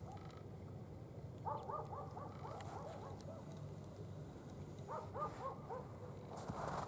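Distant animal calls: two quick runs of short yelping notes, about a second and a half in and again about five seconds in, over a faint low steady rumble.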